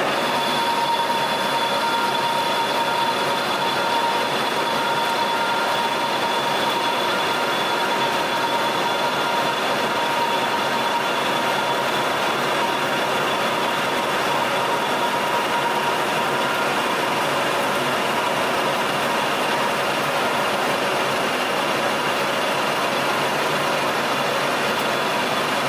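Metal lathe running under power, turning a 4140 steel shaft with an indexable insert tool: a steady gear whine over an even hiss of machine and cutting noise.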